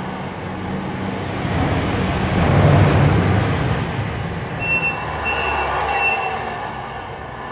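Simulated diesel truck engine sound from the Tamiya MFC-03 sound unit in a 1/14 RC Scania R620 tractor, humming steadily and swelling louder about two seconds in as the model drives. Three short high beeps follow near the middle.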